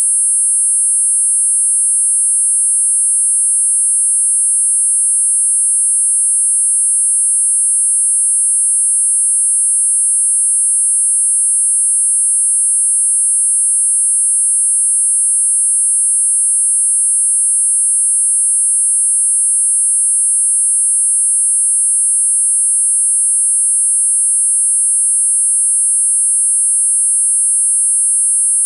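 Four steady, high-pitched electronic sine tones sounding together at 8.5, 9, 10 and 10.5 kHz, unchanging throughout: a multi-tone tinnitus masker.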